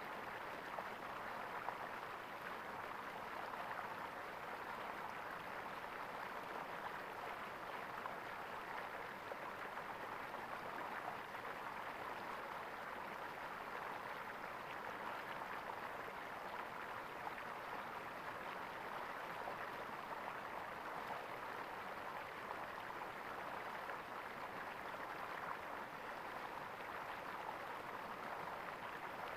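Stream water gurgling steadily.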